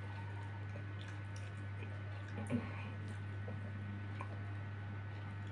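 Small wet squishes and clicks of fingers picking meat off duck bones and chewing, with one louder click about two and a half seconds in, over a steady low hum.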